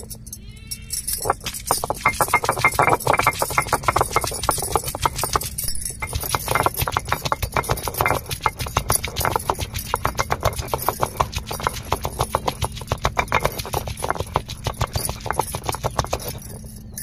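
Stone roller of an ammi grinding stone knocking rapidly and repeatedly against the stone slab as it crushes garlic and ginger, stone striking stone with a brief pause about six seconds in.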